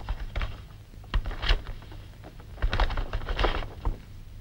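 Rustling and crackling of a large stiff sheet of paper being unrolled and smoothed flat on a table, in several short irregular spells, over a low steady hum.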